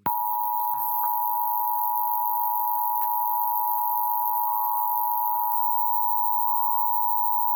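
Emergency Alert System attention tone: a loud, steady, unbroken tone just under 1 kHz sounding throughout, the alert signal that comes before the spoken monthly test message.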